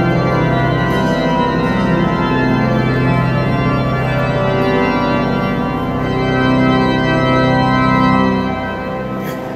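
The grand pipe organ of Notre-Dame de Paris playing full, sustained chords over a deep bass, easing off a little near the end.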